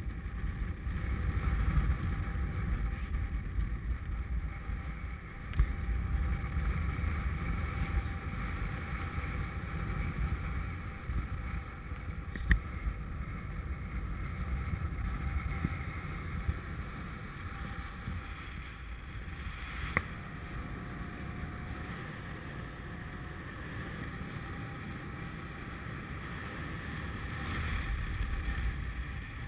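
Wind rushing over an action camera's microphone in paraglider flight: a steady low rumble of airflow that swells and eases a little, with three brief clicks.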